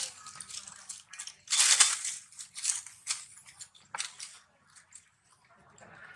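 Dry fallen leaves rustling and crunching in irregular bursts, loudest about two seconds in.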